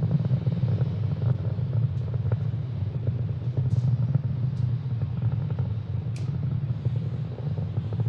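Falcon 9 rocket's first-stage engines heard from the ground as a steady low rumble with faint crackling over it.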